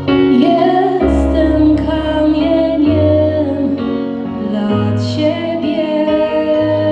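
A girl sings solo into a microphone over an instrumental accompaniment, holding long, wavering notes.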